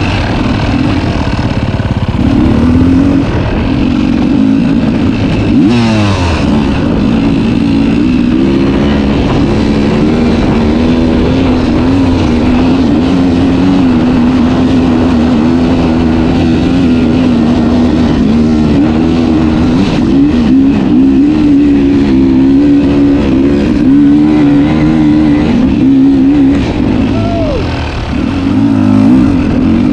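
Two-stroke dirt bike engine running hard while being ridden, its pitch rising and falling with the throttle, with a brief drop and rise in revs near the end.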